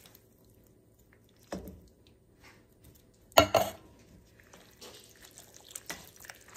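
Blended stewed tomatoes plopping out of a can into a skillet of macaroni and ground beef. A single sharp knock comes about three and a half seconds in and is the loudest sound. After it, a wooden spatula stirs the thick sauce through the pasta with soft wet scraping.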